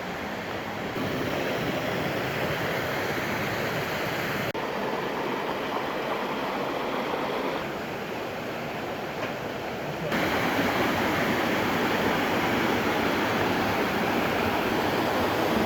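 Waterfall and river water rushing steadily. The level jumps up or down abruptly a few times, as the shots change.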